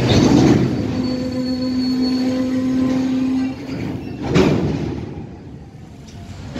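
Freight train's open box wagons rolling past, with wheel noise and a steady low squeal for the first three seconds or so. Loud clanks at the start and a little past four seconds in, then the sound falls away.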